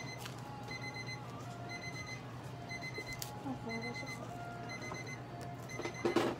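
Electronic medical-equipment alarm beeping, a short high beep about once a second. A brief louder rustling noise comes near the end.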